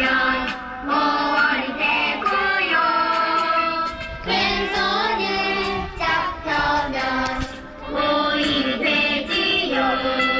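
Background music: a song sung by several voices, children's and women's, with held melodic notes.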